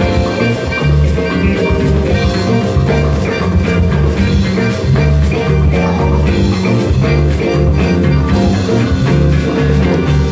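Live band playing a steady groove: electric guitars, hand drums and a drum kit over a repeating bass line.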